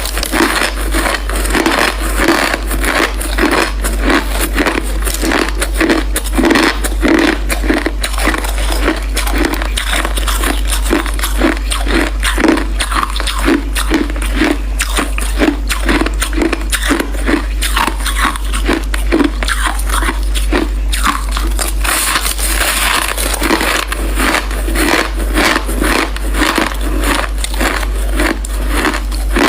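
Close-miked biting and chewing of crunchy crushed ice: a dense, continuous crackle of crunches over a steady chewing rhythm of about two chews a second.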